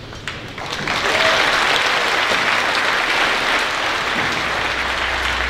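Audience applauding, swelling about a second in and then holding steady.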